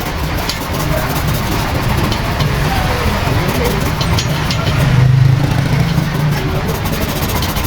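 Motor-vehicle engine running in steady background traffic noise, growing louder for a moment about five seconds in as it passes close.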